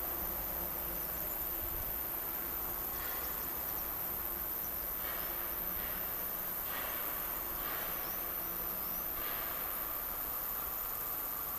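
Steady high-pitched chirring of insects, with a few short chirps scattered through.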